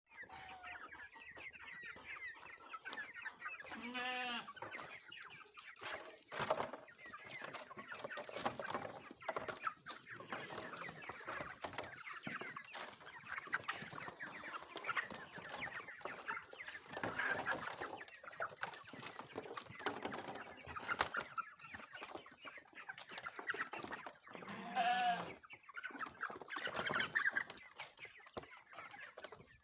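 A flock of chickens clucking and calling over one another, with a louder drawn-out call about four seconds in and another around twenty-five seconds in.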